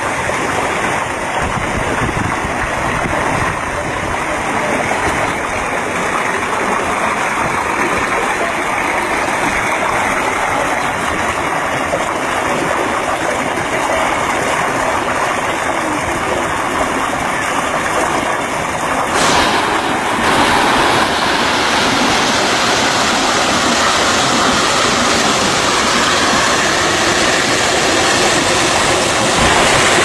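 Waterfall and stream water rushing steadily over rock. About two-thirds of the way through, the rush turns brighter and hissier.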